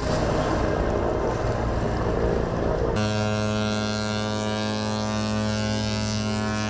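Outdoor rushing noise of wind and water. About three seconds in it cuts abruptly to a steady, unchanging drone with many overtones.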